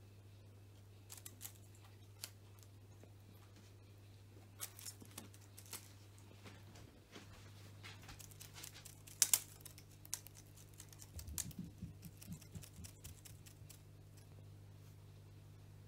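Scattered light taps, clicks and rustles from a cat playing with a wand cat teaser, the sharpest click about nine seconds in, over a faint steady low hum.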